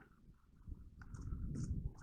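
Muffled low rumbling and rustling that starts about halfway through and grows louder, with a few faint clicks, like gear or clothing rubbing near the microphone.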